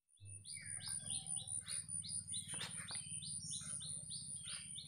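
Wild birds chirping in a rapid series of short, falling notes, several a second, over a steady high-pitched whine and a low hum.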